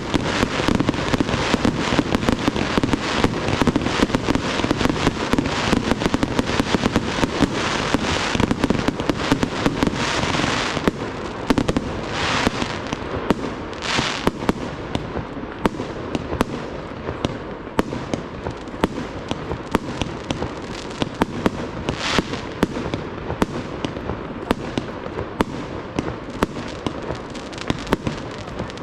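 Fireworks display: a dense, rapid barrage of bangs for about the first ten seconds, then the shots go on less densely, with a few louder bursts.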